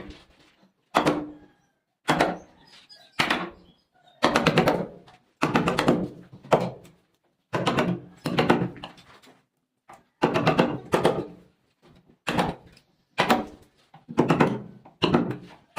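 Repeated hammer blows on a wooden door, roughly one or two a second, some coming in quick flurries, each with a short ringing thunk, as the door is worked to fit a doorknob.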